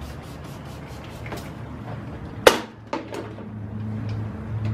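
Handling noise on a bare cast-iron engine block: scattered light clicks, then a sharp knock about two and a half seconds in and a smaller one half a second later as things are set down on it. A low steady hum comes in near the end.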